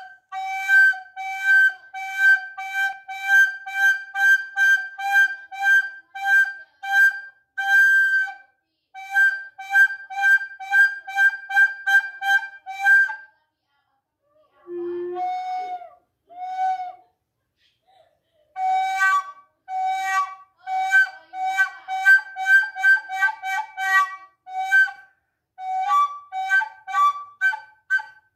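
Recorder played in short, repeated chirping notes imitating bird calls, about two a second. About halfway through the notes stop briefly for a few lower, sliding notes, then the repeated chirps resume.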